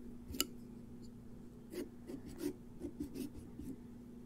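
Kitchen knife sawing through pumpkin rind along a traced outline: a sharp click about half a second in, then short scraping strokes, several a second, from about two seconds in.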